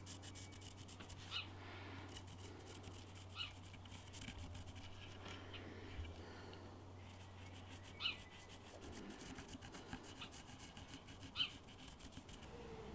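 Pencil scratching in quick, light strokes on a wooden axe handle as lines are drawn on the bare wood. A bird gives four short high chirps.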